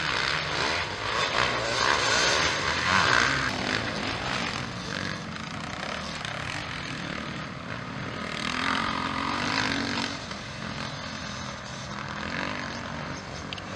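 Motocross bikes racing on a dirt track, their engines revving and buzzing as they accelerate and pass. The sound swells louder about two seconds in and again about nine seconds in.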